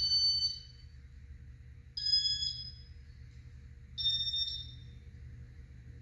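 Three short electronic beeps, two seconds apart, each a little higher in pitch than the one before, over the steady low hum of a running ceiling fan.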